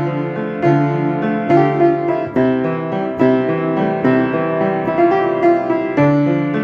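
Piano playing a repeated riff with varied chords and bass notes, the notes struck in a steady flowing rhythm and left to ring.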